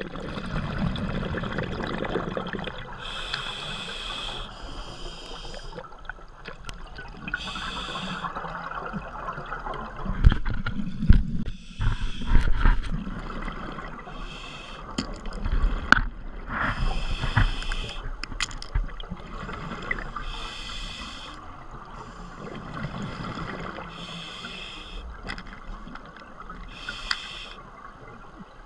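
Scuba breathing recorded underwater through a demand regulator: hissing inhalations every few seconds alternate with the bubbling, gurgling rush of exhaled air.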